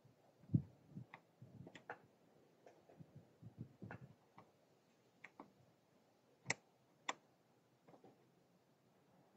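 Small L-shaped Torx key turning a T30 Torx bolt in a roof-rack crossbar foot: light, irregular clicks and taps as the key is worked and repositioned a part-turn at a time. There is a soft knock about half a second in and two sharper clicks about two-thirds of the way through.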